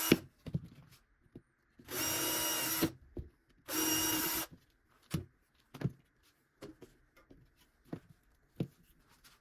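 Power drill running in three short bursts, each under a second, on a wooden workpiece. Scattered light clicks and knocks follow.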